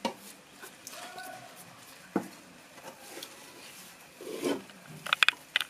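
A spoon scooping soft carrot fufu out of an aluminium pot, with a few light knocks and scrapes against the pot; a quick run of high-pitched chirps sounds near the end.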